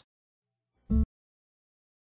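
Silence broken once, about a second in, by a single short pitched sound lasting about a fifth of a second.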